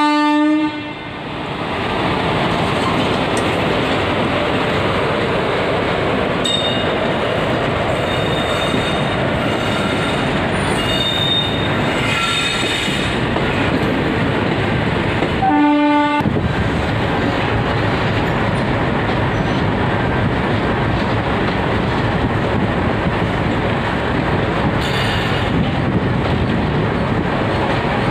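Express train pulling out of a station behind a WAP-4 electric locomotive, its coaches rolling past with a steady rumble and clatter of wheels on rail joints. On and off between about a quarter and halfway through, the wheels squeal. A brief pitched horn-like tone cuts in about halfway.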